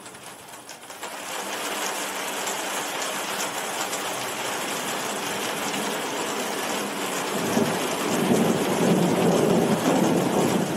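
Heavy rain falling steadily, growing louder about a second in. A low rumble of thunder rolls in about seven seconds in and is the loudest sound near the end.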